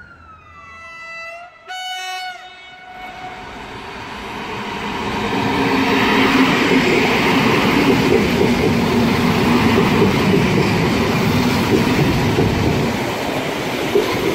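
SKM Tricity EN57AKM electric multiple unit sounding a short horn blast about two seconds in. The train then runs past close by, its wheel and motor rumble building to a loud, steady noise as the carriages go by. A falling wailing tone dies away at the very start.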